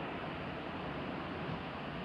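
Steady hum of road traffic, including a passing recycling lorry, with no single engine standing out.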